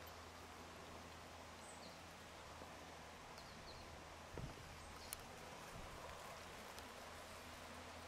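Faint outdoor woodland ambience: a steady low hum with a few faint, short, high bird chirps, a soft thump about four seconds in and a small click a little later.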